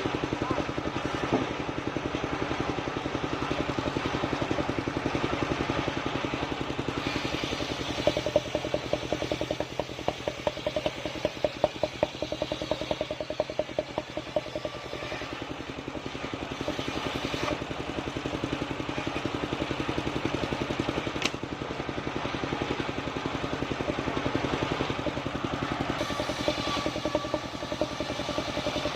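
Engine of a portable circular-saw sawmill running steadily while the blade cuts sengon wood, with a few short louder knocks midway.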